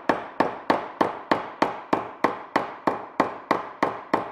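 Large ball peen hammer striking a sheet-metal rib flange clamped between wooden form blocks in a bench vise, in steady blows about three a second, each with a short ring. The blows are ironing the lumpy flange face flat against the form, a step in hand-forming the rib.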